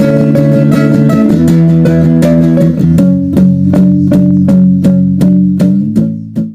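Background music of strummed guitar chords in a steady rhythm, cutting off abruptly near the end.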